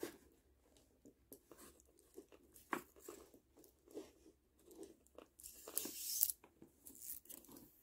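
Faint, scattered clicks of plastic pony beads knocking together as they are picked up and threaded onto string, with a brief soft rustle about six seconds in.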